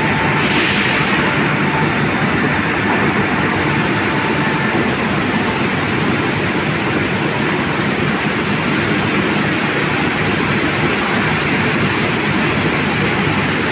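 Steady, loud machinery noise of an overhead travelling crane moving a multi-magnet lifting beam through a steel mill hall, an even rush with no distinct beats. A faint thin tone fades out in the first couple of seconds.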